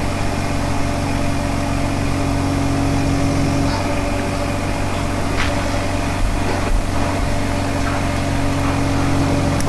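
Steady, even machine hum with several fixed tones, and a few faint clicks.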